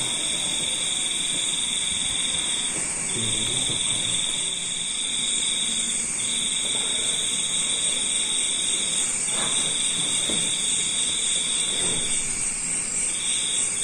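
A steady high-pitched buzzing tone that breaks off briefly about every three seconds, over a constant high hiss.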